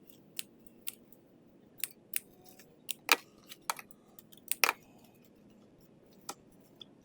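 Scissors snipping ribbon ends as a bow's tails are trimmed: about ten short, sharp cuts at irregular intervals, some in quick pairs.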